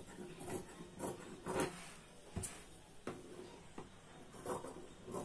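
Tailor's scissors cutting through blouse lining fabric on a table: a series of short snips, a little under a second apart.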